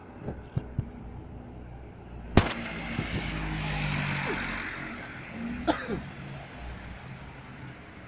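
Street traffic with a car passing close by, its noise swelling and then fading, against steady city traffic noise. A sharp click about two and a half seconds in is the loudest sound, and another click comes a little before the six-second mark.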